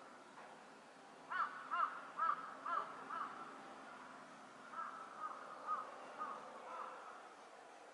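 A crow cawing: a run of about five caws, then a fainter run of about five more a couple of seconds later.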